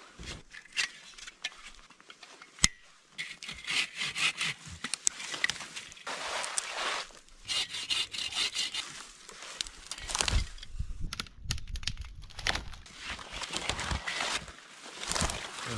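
Dead wood and brush scraping, rustling and cracking irregularly, with a sharp snap about two and a half seconds in.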